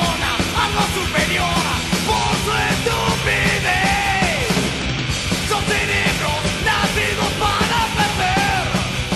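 Punk rock song played by a full band: distorted electric guitars, bass and drums keeping a driving beat, with a lead line that bends up and down in pitch.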